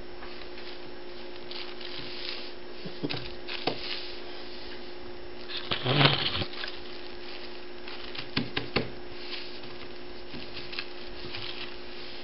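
A kitten and a hand scuffling on paper: light rustling, scratches and taps, with one louder scuffle about halfway through, over a steady electrical hum.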